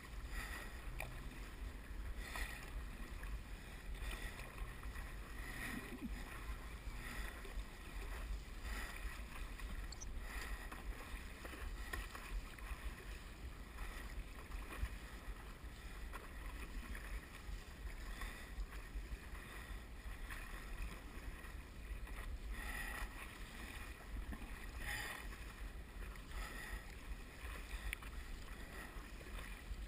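Stand-up paddle strokes splashing in the water, a soft splash every second or two, with water washing past the board's nose. A low steady rumble of wind on the microphone runs underneath.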